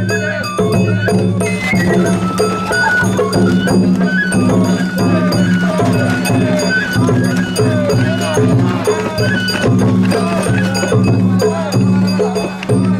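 Sawara-bayashi festival music from a float's hayashi band: a bending flute melody over rapid, steady strikes of drums and a small metal gong, with a steady low hum underneath.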